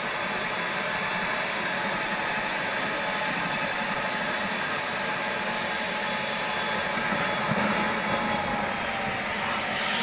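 Milwaukee M18 FUEL dual-battery (36 V) wet/dry shop vacuum running on its high speed, sucking water up through its hose out of a bucket. A steady motor and rushing-air noise that rises slightly near the end.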